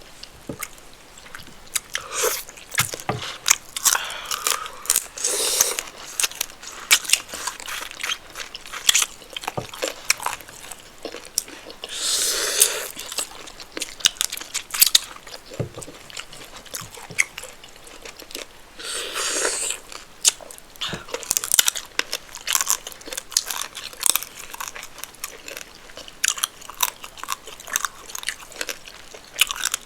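Close-miked mouth sounds of a person eating rice and spinach stew with chicken: chewing and biting with many wet smacking clicks, and two longer noisy bursts about twelve and nineteen seconds in.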